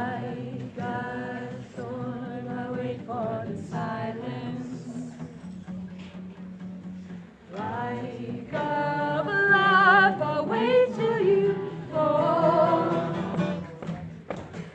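Unamplified live performance: several voices singing wordless, choir-like harmonies over a steady low held note, with an acoustic guitar. The singing grows louder and busier about eight seconds in.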